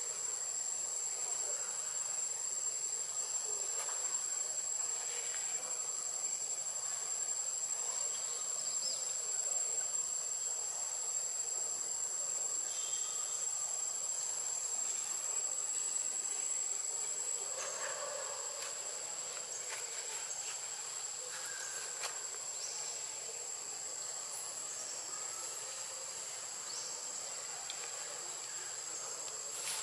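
Insects droning: a steady, unbroken high-pitched whine with fainter high tones above it, over faint scattered short sounds.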